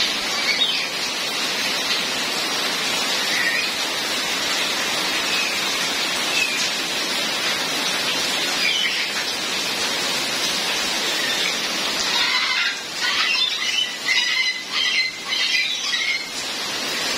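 Steady rain falling, with a few faint short chirps. About three-quarters of the way through comes a rapid series of short high-pitched sounds, several a second, lasting about four seconds.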